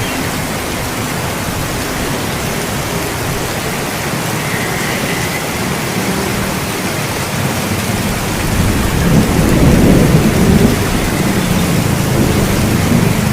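Steady heavy rain, with a low rumble of thunder swelling and fading about two-thirds of the way through.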